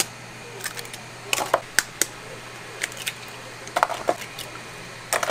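Kitchen utensils and dishes clinking and knocking in irregular sharp clicks, some in quick clusters, over a steady low hum.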